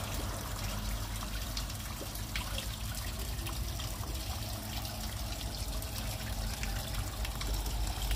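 Small stone waterfall in a garden fish pond, water trickling steadily down the rocks into the pool.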